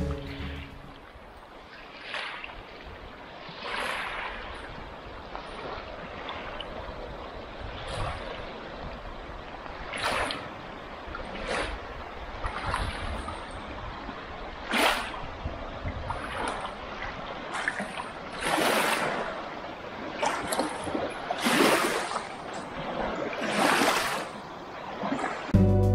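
Small waves lapping and splashing against a rocky lakeshore: a steady wash of water with a splash every second or two.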